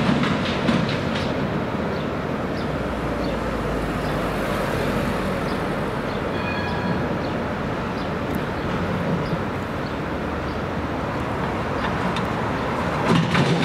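Alstom Citadis tram running on street track, its wheels clicking over rail joints as it moves off. The clicking falls away into steady city traffic noise, then returns near the end as a second tram comes in. A brief high tone sounds about halfway through.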